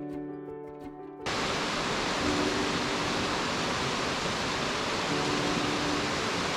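Steady, dense roar of Nachi Falls, the waterfall, cutting in suddenly about a second in after a sustained chord of soft music. Faint music tones continue beneath the falling water.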